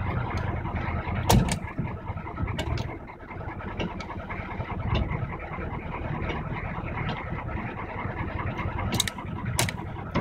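1982 Chevrolet K5 Blazer's 6.2-litre V8 diesel idling steadily while it warms up after a cold start. A few sharp clicks or knocks stand out over it, the loudest about a second in and two near the end.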